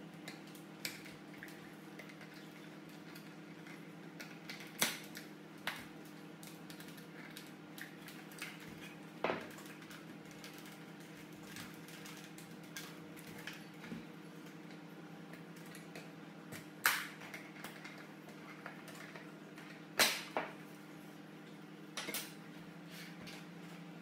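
Scattered sharp plastic clicks and knocks as the black plastic housing of a Nespresso coffee machine is handled and its side panel opened, the loudest a little past halfway. A steady low hum runs underneath.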